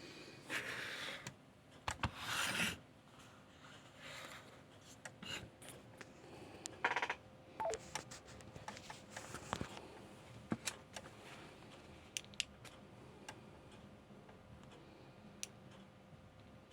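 Two short bursts of radio hiss in the first three seconds, then scattered sharp clicks of 4x4 keypad buttons being pressed on the SvxLink node, with one brief beep about eight seconds in.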